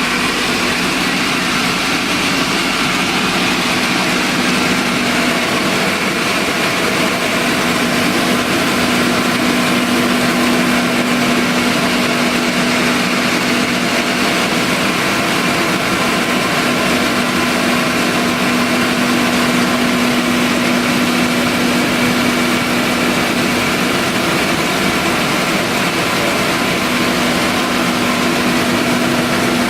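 Ginger washing machine running steadily: a constant motor hum with a broad, even hiss over it.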